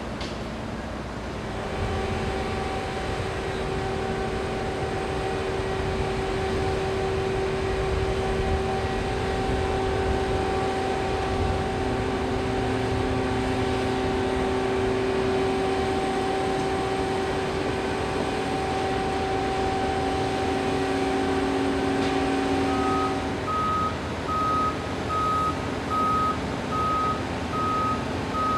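Heavy lifting crane running under load, a low rumble with a steady whine of several held tones. Near the end the whine stops and a backup alarm beeps about once a second.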